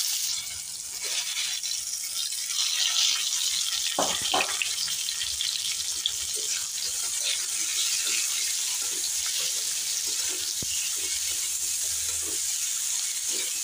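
Raw mango pieces sizzling in hot mustard oil in a steel kadhai, a steady frying hiss, with a metal spatula scraping and knocking against the pan as they are stirred, the loudest knocks about four seconds in.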